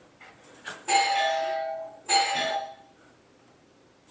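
Recorded doorbell chime played from a computer: a two-note ding-dong, high then low, sounding twice about a second apart, each fading out.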